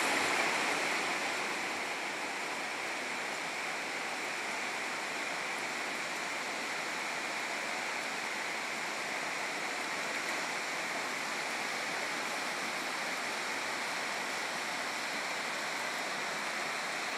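Heavy rain pouring down steadily, an even hiss, a little louder in the first couple of seconds.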